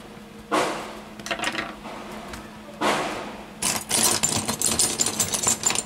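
Hands handling a Lenovo Yoga Tab 3 tablet's plastic back and hinge: a few short scrapes, then a quick run of clicks and rattles lasting about two seconds near the end.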